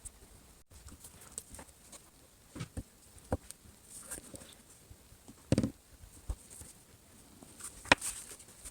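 Scattered light taps and clicks of a phone and small tools being handled on a work surface. There is a duller knock about five and a half seconds in and a sharp click near the end.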